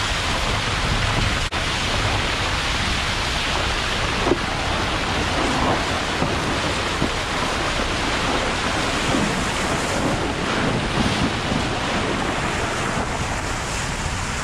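Muddy flash-flood water rushing across a dirt road, a steady loud rush of runoff from a heavy downpour.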